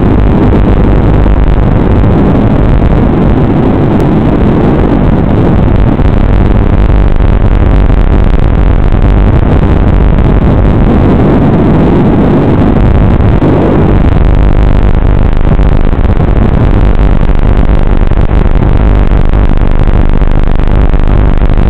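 Loud, distorted hiss and static over a steady low hum, the audio channel of an analog FPV video link recorded by the goggles' DVR. It swells a little twice, the second time near the middle.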